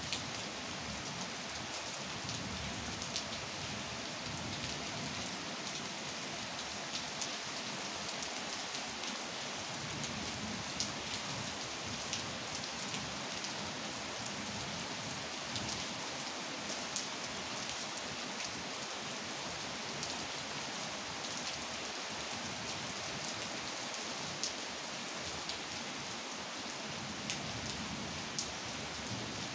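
Steady rain falling, an even hiss with scattered sharper ticks of drops striking nearby surfaces.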